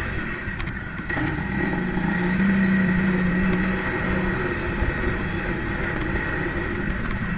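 Off-road quad or side-by-side engine running steadily while riding, with a constant hiss of wind and terrain noise. It gets a little louder about two seconds in, then eases back.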